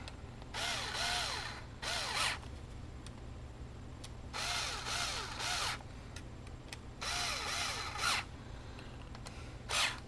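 Small cordless screwdriver whining in three short runs, about half a second in, around four seconds and around seven seconds, as it lightly tightens the screws that hold a 2.5-inch SSD in its mounting bracket.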